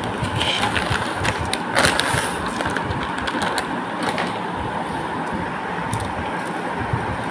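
Crinkly plastic packet of dry lachha semai rustling and crackling as the vermicelli is tipped out onto a plate, in a run of sharp clicks in the first two seconds, over a steady background rumble and hiss.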